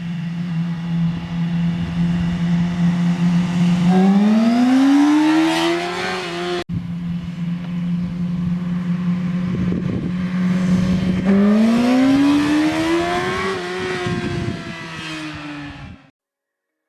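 2008 Yamaha R6's inline-four engine idling through its stock exhaust, then revved twice, each rev climbing for a couple of seconds before dropping back toward idle. The sound cuts off abruptly near the end.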